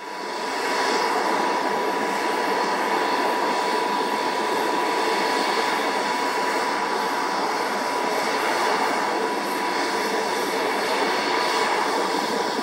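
Bombardier Challenger 350 business jet's twin Honeywell HTF7350 turbofans running at ramp idle: a steady jet roar with a whine held at one pitch.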